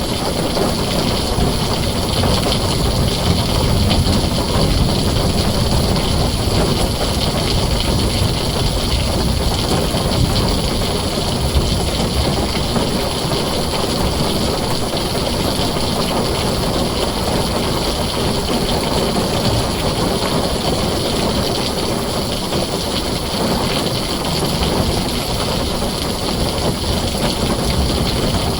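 Heavy rain drumming steadily on a tin roof: a dense, even hiss with a low rumble underneath.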